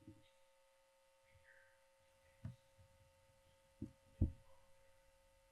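Near silence: faint room tone with a steady electrical hum, broken by three soft low thumps in the second half.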